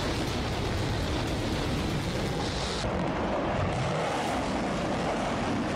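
Steady rushing roar of rockets firing from a multiple rocket launcher, its hiss dulling slightly about halfway through.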